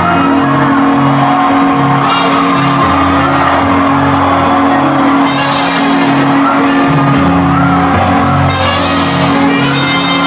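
Live band playing loud music, heard from the audience in a large hall: held bass notes under a pulsing low beat, with cymbal crashes coming in a few times.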